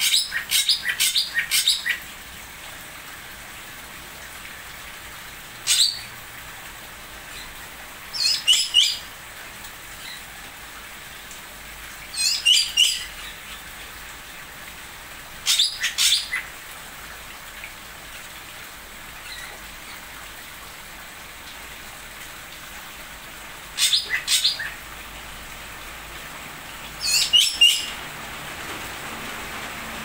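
Small aviary birds chirping in about seven short clusters of quick, sharp, high notes spaced a few seconds apart, over a steady background hiss.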